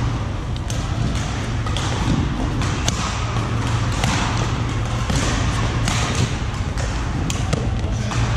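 Badminton rally: frequent sharp racket strikes on the shuttlecock and footfalls on the court floor, echoing in a large sports hall, over a steady low hum.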